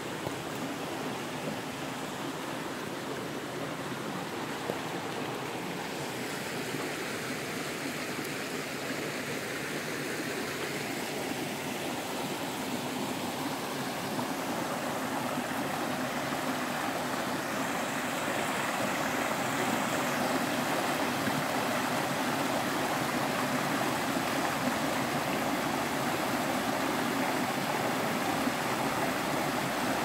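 Mountain stream rushing and splashing over mossy boulders in small rapids. It is a steady rush of water that grows gradually louder.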